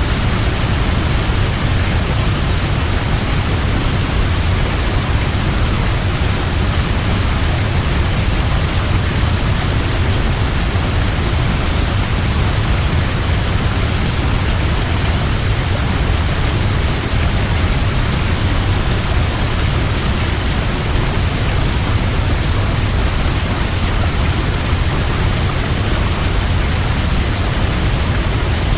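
A large waterfall: a steady, heavy rush of falling water with a deep low rumble, unchanging throughout.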